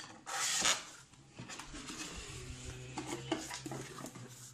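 Cardboard packaging insert being pulled out of a box: a loud scrape of cardboard rubbing on cardboard about half a second in, then softer rustling and light taps as the card is handled.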